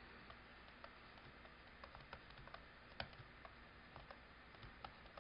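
Faint, irregular light clicks of a stylus tapping on a tablet as numbers are handwritten, over near-silent room tone; the clearest click comes about three seconds in.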